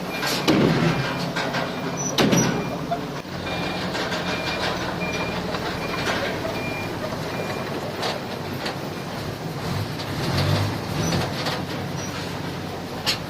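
Diesel heavy machinery running steadily, with a reversing alarm beeping about twice a second through the first half and several sharp knocks near the start.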